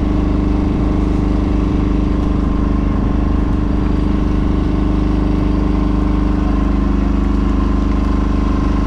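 Fishing boat's engine running steadily, an even, unchanging drone.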